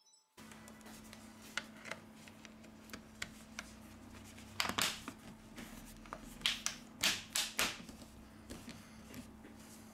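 Plastic back cover of a Xiaomi Redmi 8A being pressed onto the phone by hand, its clips snapping into place in a series of sharp clicks, the loudest in clusters about halfway through and again a little later. A faint steady hum runs underneath.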